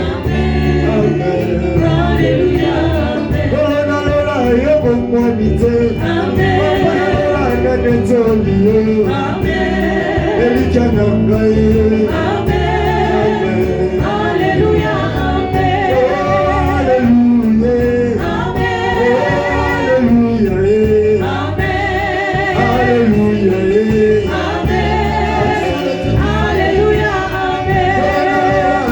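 Gospel worship song: voices singing with wavering vibrato over continuous instrumental backing with a steady low bass.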